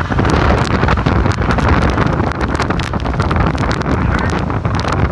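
Hurricane-force wind buffeting the microphone in loud, continuous gusts, with a heavy low rumble and many sharp crackles.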